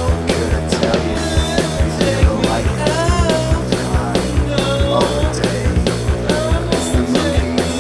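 Rock music soundtrack with drums and singing.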